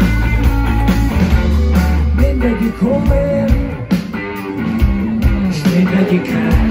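Live rock band playing, heard from within the audience at an open-air concert; heavy sustained bass drops away about two and a half seconds in, leaving guitar and other pitched parts.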